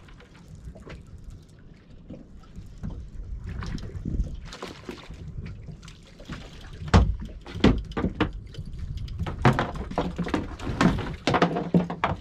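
Water sloshing and splashing around a small boat as two mackerel are hauled aboard on a string of feathers, then from about seven seconds a run of sharp knocks and slaps.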